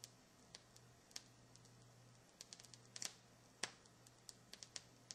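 Vinyl LP surface noise in the silent groove between tracks on a Sanyo P33 turntable: faint scattered clicks and pops, coming more often in the second half, over a faint steady hum.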